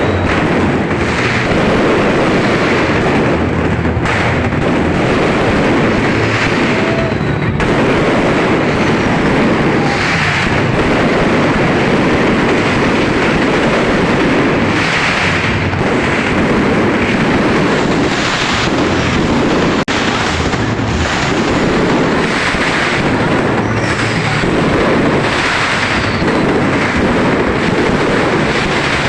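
Fireworks display going off without a break: a dense, steady rumble of bursts and crackle, swelling every second or two.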